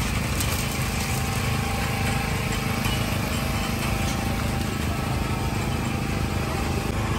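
Steady drone of a small engine or motor running without change.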